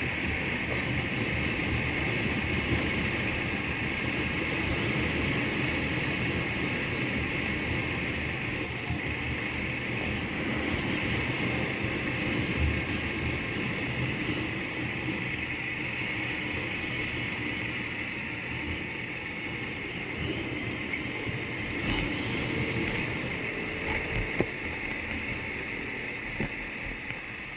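Steady wind rush and running noise from a vehicle moving along a road, with a few small clicks along the way.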